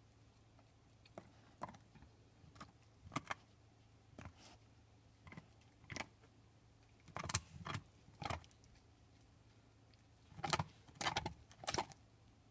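Pit bull gnawing a beef bone: irregular sharp cracks and clicks of teeth on bone, coming in clusters, the loudest about seven seconds in and again near the end.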